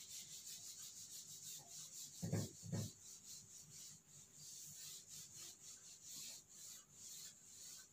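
Whiteboard duster rubbing across a whiteboard in quick repeated wiping strokes, about four a second. Two short, low, louder sounds come a little over two seconds in.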